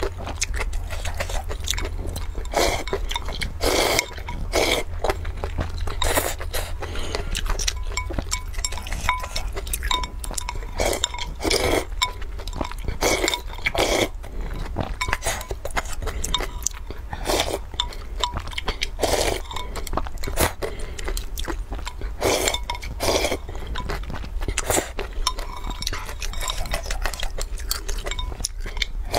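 Close-up eating sounds: noodles slurped and chewed in repeated short bursts, with chopsticks clinking against a glass bowl. Near the end the bowl is tipped up to sip the broth.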